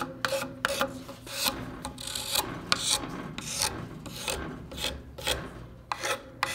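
Hand file scraping back and forth across the worn end of an old wooden axe handle, in quick repeated strokes of about two to three a second, smoothing the weathered wood.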